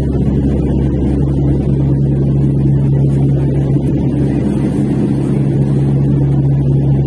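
Steady, loud engine drone of an aircraft heard from inside the passenger cabin, a constant low hum with a steady tone and no change in pitch.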